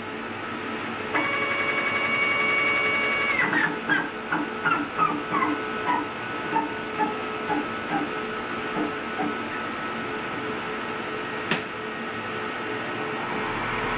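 CNC router's stepper motors whining steadily as the axis drives the spindle and brush dust shoe down, followed by a run of short jogging chirps, each a little lower in pitch, and one sharp click. Near the end a dust-extraction motor starts up, its hum rising in pitch and loudness.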